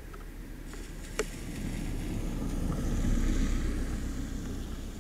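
A car passing on a wet dirt road, its tyre swish and engine noise swelling to a peak about three seconds in and then fading. A single sharp click about a second in.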